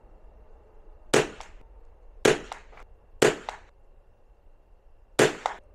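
Scoped .22 rimfire target rifle firing four shots of vintage Federal Champion .22 ammunition, three about a second apart and a fourth after a two-second pause. Each shot is a sharp crack followed about a third of a second later by a fainter second crack.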